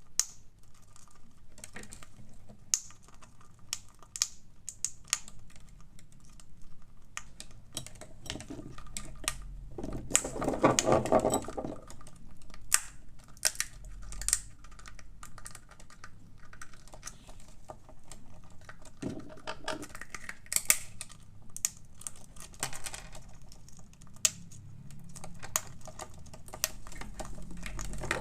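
Parrot's beak gnawing and cracking at a hard walnut shell: dense, irregular sharp clicks and small cracks. There is a short, louder rasping burst about ten seconds in.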